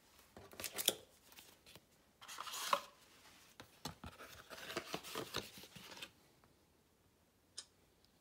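Rustling and scraping handling noise in several irregular bursts over the first six seconds, then a single short click near the end.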